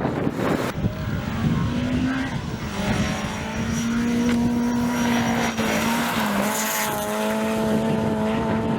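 Rally car running hard on a stage, its engine note holding a steady pitch for several seconds. The note dips briefly about six seconds in and then picks up again.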